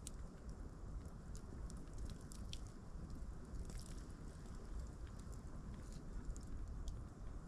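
Campfire crackling, with scattered sharp pops and ticks at irregular intervals over a low rumble.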